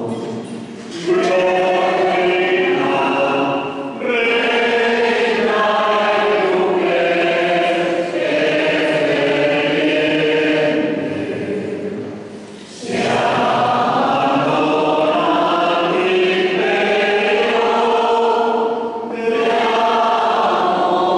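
Many voices singing a hymn together in long, held phrases, with brief pauses between phrases.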